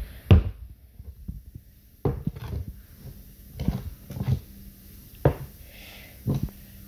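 Metal spoon knocking and scraping on a tabletop as it scoops up sticky glitter slime: a handful of irregular clatters, about one a second.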